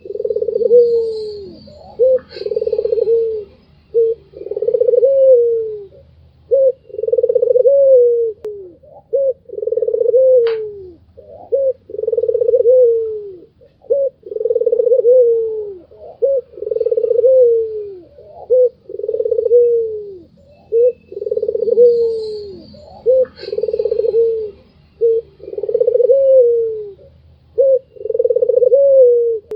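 White Barbary dove cooing over and over: a short clipped note, then a longer low coo that drops in pitch at its end, repeated about every two seconds. Faint high chirps of other small birds come in near the start and again near the end.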